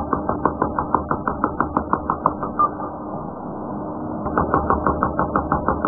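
Electric hammer drill boring into a concrete block: a steady motor hum with rapid regular knocks, about eight a second. The knocking stops for about a second and a half in the middle, leaving only the hum, then starts again.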